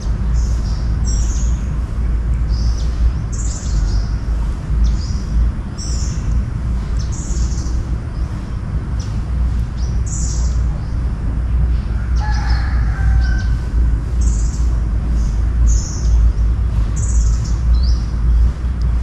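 A bird calling over and over, a short high chirp about once a second, with a different, lower call once around the middle. A steady low rumble runs underneath and is the loudest part.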